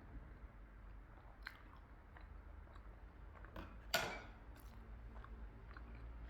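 A person chewing food, with soft wet mouth clicks and one louder, sharp bite about four seconds in.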